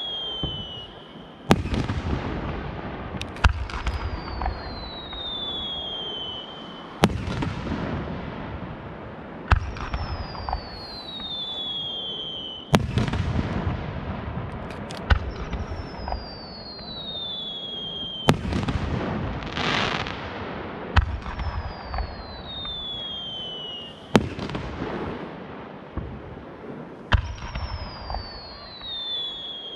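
Japanese aerial firework shells going off in a steady sequence. Each starts with a high whistle falling in pitch, followed by a sharp bang of the burst and a long rolling rumble, about every five to six seconds.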